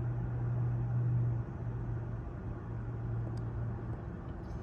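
Car engine running at low speed, heard from inside the cabin: a steady low hum over a rumble, which drops in level about a second and a half in.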